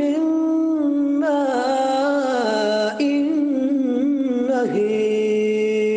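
A man reciting the Qur'an in the melodic, drawn-out tajwid style, holding long ornamented notes that shift in pitch. The voice breaks off briefly about three seconds in, dips near the end, then settles on a steady held note.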